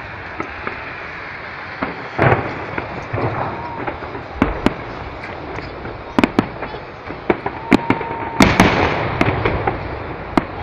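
Aerial firework shells bursting overhead: irregular booms and sharp cracks over a rumbling background, coming thickest about eight seconds in.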